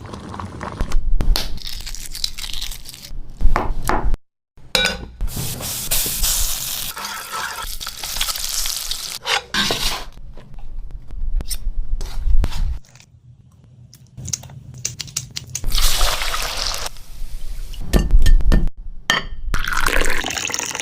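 Kitchen cooking sounds in short edited clips: a utensil stirring and scraping in a pan, with clinks of dishes. The sound cuts off abruptly a few times between clips.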